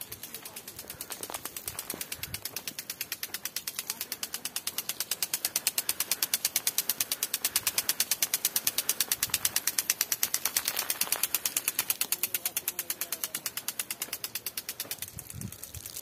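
Impact sprinkler spraying water, its arm ticking rapidly and evenly as it turns, with the hiss of the spray; the ticking is loudest in the middle.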